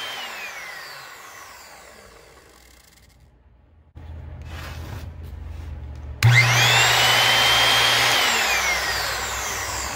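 Skilsaw Model 77 worm-drive circular saw, run without its blade on a test of freshly fitted motor brushes. At first its motor coasts down with a falling whine. About six seconds in it is triggered again: it whines up quickly to full speed, runs steadily for about two seconds, then winds down as the trigger is let go. It runs without grinding or clicking, a sign that the brush repair has worked.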